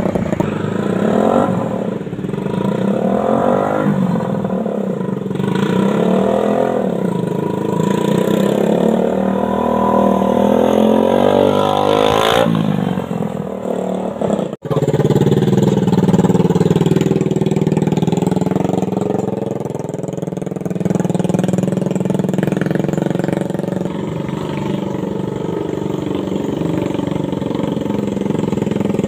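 Suzuki Satria FU 150cc single-cylinder motorcycle engine driving a homemade mini pickup, its revs rising and falling as it drives. The sound breaks off suddenly about halfway, then the engine runs on more steadily.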